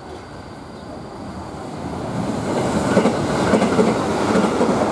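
Trains on the rails at a station platform: wheels clattering over the rail joints, growing louder from about two seconds in as a train comes close and passes.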